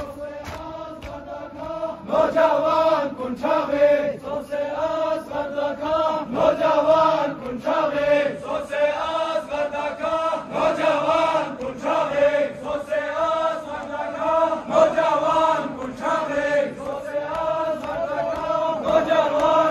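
A crowd of male mourners chanting a Muharram lament (noha) in unison, one melodic phrase repeated over and over.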